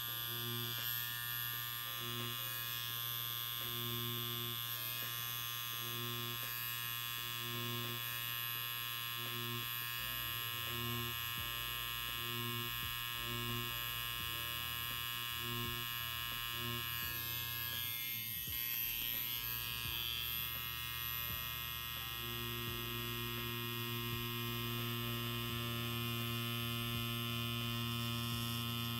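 Hummingbird Bronc V1 wireless rotary tattoo pen, driven by its Maxon motor at about 9 volts, buzzing steadily as its liner needle pulls lines into practice silicone skin. A lower hum comes and goes about once a second, then holds steady for the last quarter.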